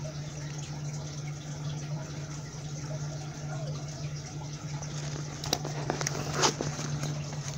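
Steady rushing hiss of a fire hose spraying water onto a burning car, over a steady low hum, with a few sharp clicks about five and a half and six and a half seconds in.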